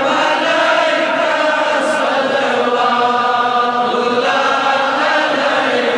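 Devotional chanting of a durood, salutations on the Prophet, sung by several voices together with long, drawn-out held notes.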